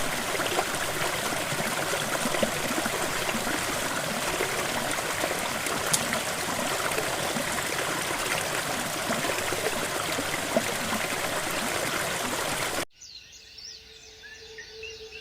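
Running water of a forest stream, a steady, dense rushing. It cuts off abruptly near the end, leaving faint bird chirps.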